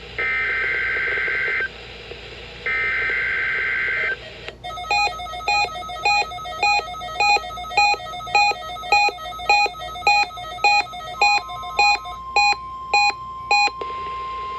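NOAA Weather Radio SAME header for an EAS Required Weekly Test: two bursts of warbling two-tone digital data, each about a second and a half long, a second apart. Then rapid electronic beeping, about two beeps a second, for around nine seconds, with a steady tone joining near the end.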